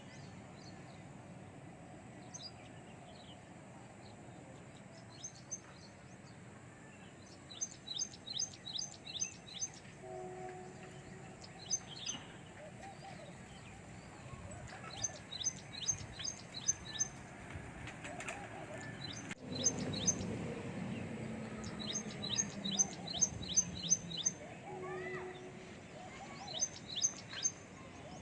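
Birds chirping outdoors in repeated runs of five or six sharp, high notes, about three a second, recurring every few seconds over a faint steady background. A low rumble swells about twenty seconds in and fades a few seconds later.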